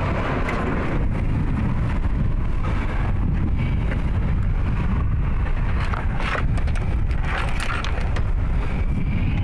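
Wind buffeting the microphone, a steady low rumble, with a few faint clicks and rustles about six seconds in and again near the end as the remote starter switch's clip leads are handled.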